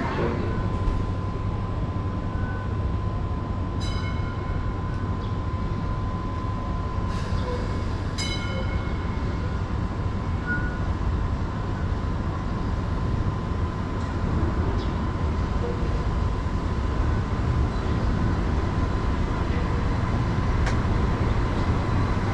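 Hong Kong Light Rail Phase I train running along the track: a steady low rumble with a constant high whine. Two brief high ringing sounds come about four and eight seconds in.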